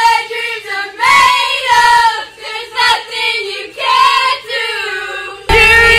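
A group of teenage girls singing loudly together in unison, in short phrases with brief breaks. About five and a half seconds in, it cuts suddenly to a single loud held sung note with a low rumble underneath.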